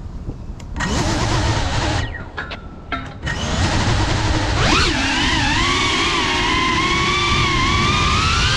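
Ducted 3.5-inch FPV cinewhoop drone's motors and propellers spinning up about a second in, with a few short stutters of throttle, then a sharp rise in pitch near five seconds into a steady whine that wavers with the throttle as it flies.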